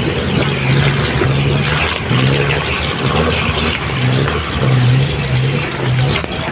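Small boat's engine running steadily, its low hum wavering, with water rushing and splashing along the hull as the boat moves through shallow river water.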